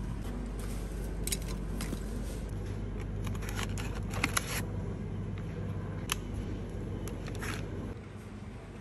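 Groceries being taken off store shelves and out of a freezer: short clinks, scrapes and rustles of cans and packaging being handled. Under them runs a steady low hum of refrigerated display cases, which drops near the end.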